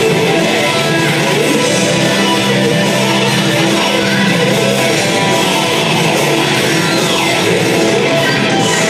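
Loud, steady rock music with strummed guitars. A falling swoop crosses it about seven seconds in.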